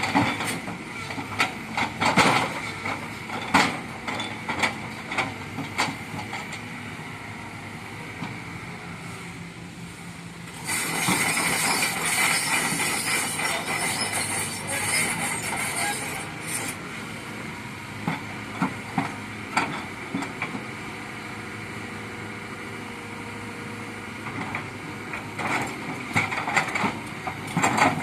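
Kobelco hydraulic excavator working: its engine runs with a steady hum while metal knocks and clanks come again and again. From about 11 to 16 seconds a louder rushing, hissing noise rises over it, then the knocks return.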